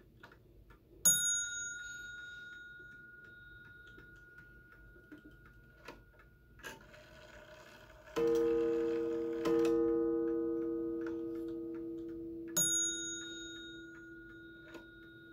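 Seth Thomas mantel clock striking as its hands are turned. A single high, bell-like ding comes about a second in and another near the end. In between, two low gong strikes count two o'clock, each ringing on and slowly dying away. Soft ticking and small clicks of the movement run between the strikes.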